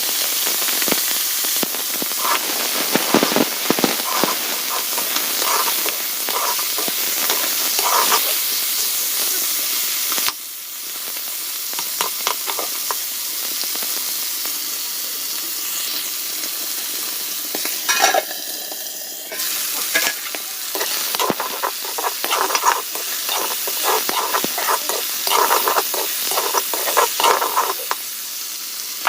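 Food sizzling as it fries in hot oil in a pan, stirred and scraped with a spatula; the sizzle drops a little in loudness about ten seconds in.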